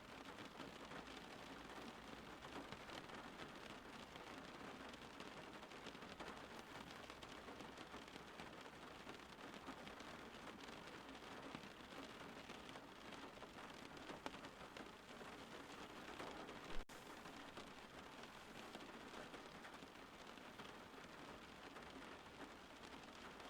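Steady, faint rain falling, an even hiss of drops, with a single sharp tick about three-quarters of the way through.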